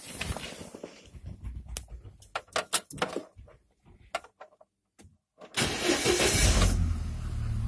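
Scattered clicks and knocks, then about five and a half seconds in a Chevrolet Niva engine is cranked and starts, settling into a steady idle. It runs with the air-conditioning drive belt removed, which isolates the worn bearing in the A/C compressor's electromagnetic clutch pulley.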